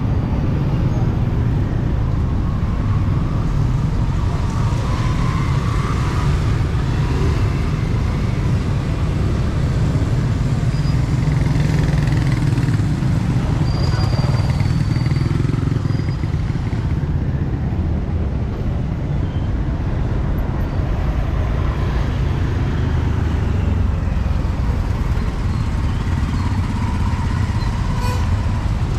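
Busy street ambience: a steady rumble of passing motorbike and car traffic, with faint voices in the background.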